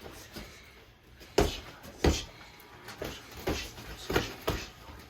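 Boxing gloves thudding as punches land in sparring: about six blows in quick succession, the two loudest about a second and a half and two seconds in.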